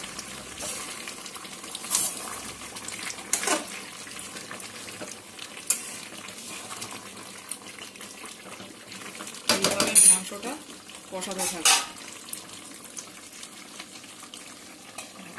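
Metal spatula stirring a chicken and potato curry in a steel pan, scraping and knocking against the pan a few times, loudest about ten seconds in, over the steady sizzle of the cooking masala.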